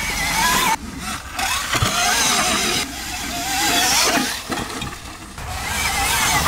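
BHR E-Race electric dirt bike being ridden on dirt: its electric motor and gearbox whine rises and falls in pitch with the throttle over the rush of knobby tyres and wind. The sound breaks off and changes abruptly a few times.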